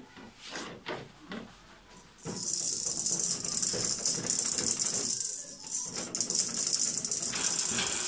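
A few light knocks, then from about two seconds in a rapid, steady, hissy rattling that keeps up to the end.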